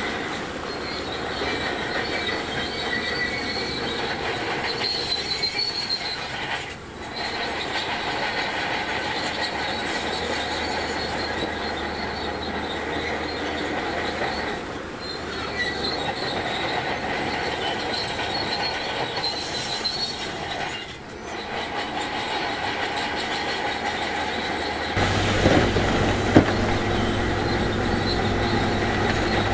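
Crawler bulldozer working, its steel tracks squealing and clanking over its running engine. About 25 s in the sound changes abruptly to a deeper rumble with knocks.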